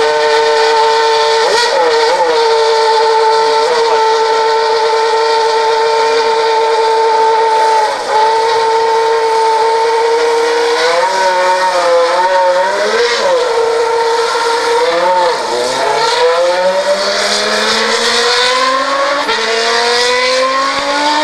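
Formula 1 car engine running at a steady high-pitched idle, the note wavering with a few blips of the throttle midway. Over the last few seconds it rises steadily in pitch as the revs build.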